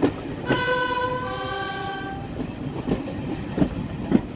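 Class 31 diesel locomotive's two-tone horn sounding a higher note, then a lower one, for about a second and a half. Under it the carriage rumbles along, its wheels clacking over rail joints.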